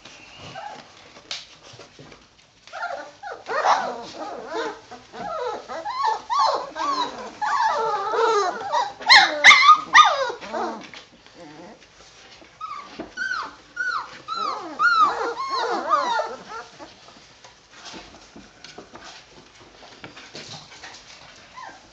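A litter of three-week-old Doberman puppies crying: many short, high, rising-and-falling cries overlapping, loudest about halfway through, then dying down near the end.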